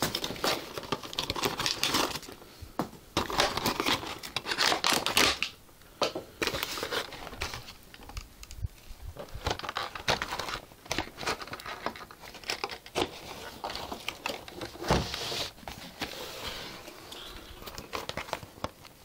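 Cardboard box and plastic packaging rustling and crinkling in irregular spells with short pauses, as a toy lightsaber is pulled out of its box.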